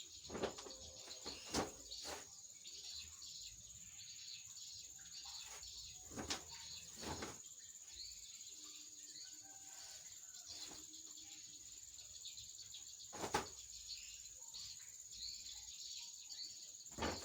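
Faint steady high-pitched insect trill with bird chirps over it. It is broken by a handful of short knocks and clatters, the loudest about a second and a half in and about thirteen seconds in.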